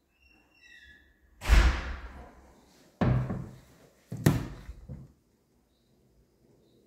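Wooden cabinet doors being opened and shut: three solid thuds about a second and a half apart, with a smaller knock after the last. Just before them there are a few short squeaks.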